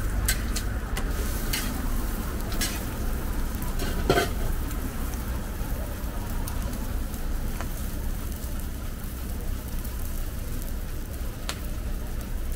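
Ham, egg and toast sizzling on a steel flat-top griddle, over a low steady rumble. A few sharp clicks and scrapes of a metal spatula on the griddle come in the first four seconds, the loudest just after four seconds in.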